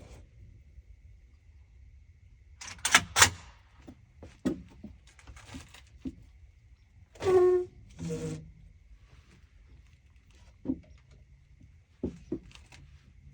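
Scattered handling clicks and knocks, metal and gear being moved. The loudest are two sharp clacks close together about three seconds in, followed by short clattering sounds around seven to eight seconds in and a few lighter ticks near the end.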